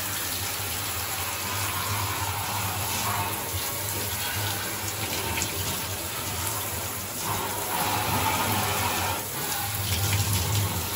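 Water spraying from a handheld shower head onto black plastic car parts in a bathtub: a steady hiss and splatter, its sound changing as the spray moves over the parts, rinsing a cleaning spray off them.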